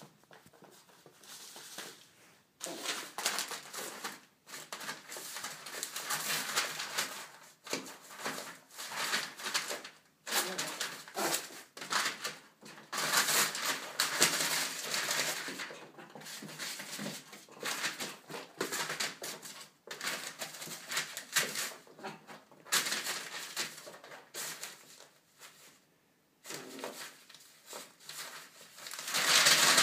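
Newspaper rustling, crinkling and tearing in irregular bursts as a teacup Yorkshire terrier pounces on it and shakes it. The loudest burst comes near the end.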